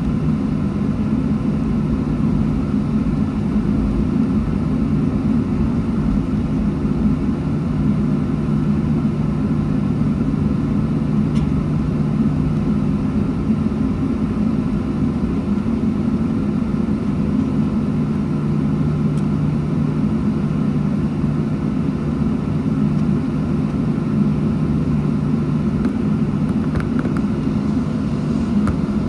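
Steady low drone inside the cabin of a Boeing 737 airliner taxiing, its jet engines near idle, with a steady low hum and no spool-up.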